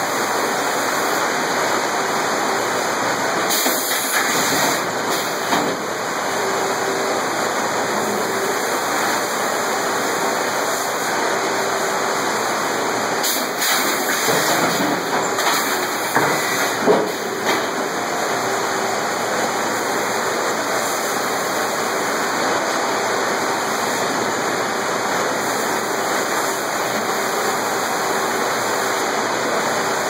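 Sawmill head rig and its machinery running with a steady roar, with a few brief louder bursts of noise along the way.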